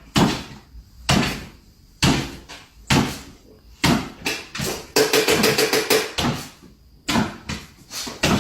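A series of sharp knocks or thumps, about one a second, each dying away quickly, with a quick run of rattling taps about five seconds in.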